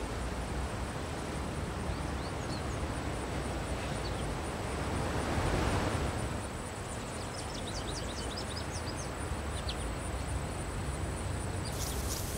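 Outdoor field ambience: a steady hiss of open-air noise that swells briefly about halfway through, with a scatter of short, faint, high chirps in the second half.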